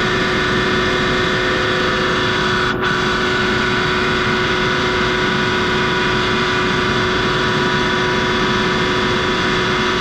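Eaton 20 hp air-cooled rotary screw air compressor running steadily, a constant loud drone with several held tones from the motor, screw air end and cooling fan.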